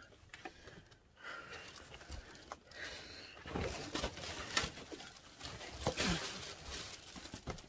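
Eating and table-handling noises: scattered clicks and taps with rustling, loudest about four and six seconds in.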